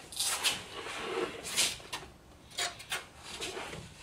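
Car door trim parts being handled and fitted: several short rubbing and scraping noises, the loudest about a second and a half in.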